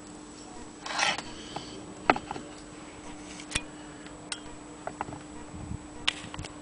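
The hand-crank wheel of a Willcox & Gibbs sewing machine being handled and spun, giving scattered light clicks and knocks with a brief rustle about a second in.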